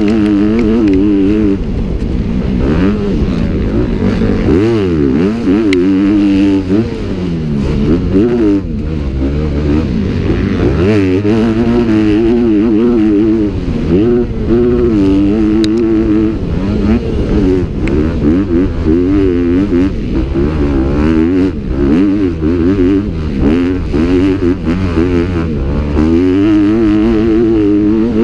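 Motocross bike engines revving, the pitch climbing and dropping over and over as the throttle opens and shuts.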